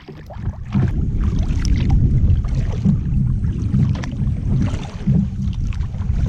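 Old Town Loon 106 sit-on-top kayak being paddled: a loud, uneven low rumble of water against the hull, with a few sharper knocks.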